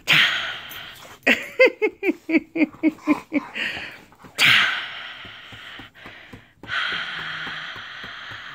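An American Pit Bull huffing and snorting in breathy puffs while being rubbed, with a run of short grunts falling in pitch about a second and a half in, and a long breathy exhale near the end.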